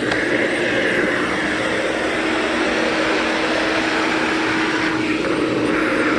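Vacuum cleaner running steadily on carpeted stairs, an even whooshing rush with a constant motor hum.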